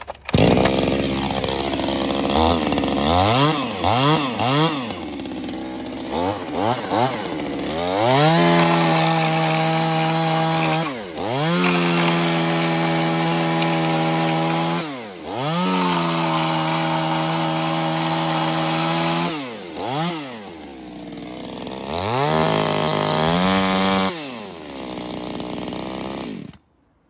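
Zenoah G2551T 25.4 cc two-stroke top-handle chainsaw catching right at the start, idling with a few quick throttle blips, then held at full throttle cutting through wood in four runs of a few seconds each, falling back to idle between them. The engine is shut off near the end.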